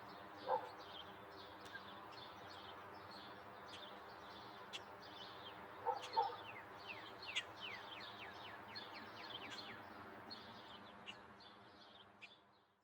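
Several songbirds chirping and twittering over a steady low background hum, with a run of quick falling whistled notes about seven seconds in. Two short, louder, lower-pitched calls stand out, about half a second in and about six seconds in, and the whole fades out at the end.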